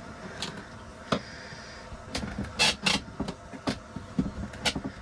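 Irregular clicks and light knocks of hand work under a boat's cabin floor, about a dozen in all, the loudest a quick pair about two and a half seconds in.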